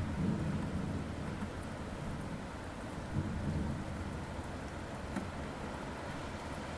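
Thunderstorm: steady rain with a low rolling rumble of thunder, strongest at the start and swelling again about three seconds in.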